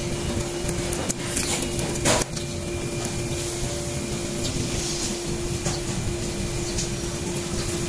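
Steady machine hum with a constant tone and low rumble, with a few light clicks from small brake wheel-cylinder parts being handled, the clearest about two seconds in.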